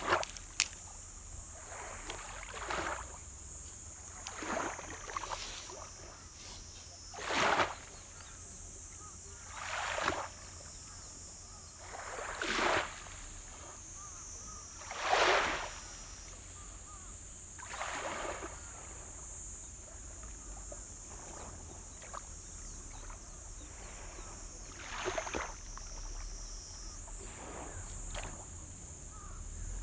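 Small waves washing in and lapping on a shore, one soft swell of water noise every two to three seconds, over a steady high-pitched hiss.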